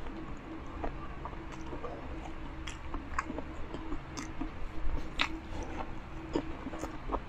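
A person chewing a mouthful of rice and pork binagoongan with the mouth closed, close to the microphone: soft wet smacks and sharp mouth clicks at irregular intervals.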